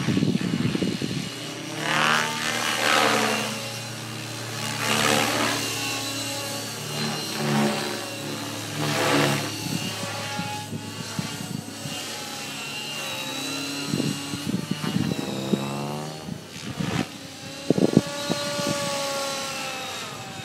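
Align T-Rex 600 Pro radio-controlled helicopter in flight: a steady hum from its main rotor and drivetrain that swells and fades several times, with gliding changes in pitch near the end as it manoeuvres.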